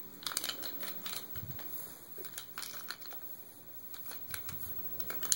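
Faint, scattered light clicks and rustles of small objects being handled, with no voices.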